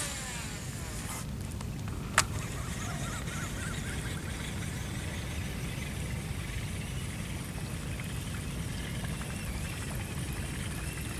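Steady low rumble of outdoor ambience, with one sharp click about two seconds in and faint chirping for a few seconds after it.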